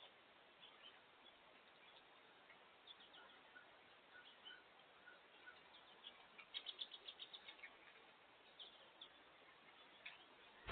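Faint scattered chirps of small songbirds, with a quick run of about eight chirps a little past the middle.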